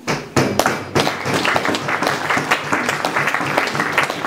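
Audience applauding: many hands clapping, breaking out suddenly with a few separate claps and quickly thickening into a dense, even patter.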